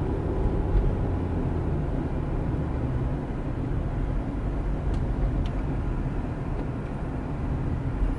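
Cabin noise inside a moving 2013 Infiniti JX35 SUV: a steady low rumble of engine and tyres on the road while driving.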